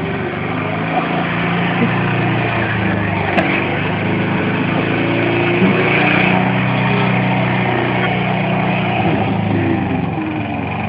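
Petrol lawn mower engine running steadily, with a faint click about three seconds in.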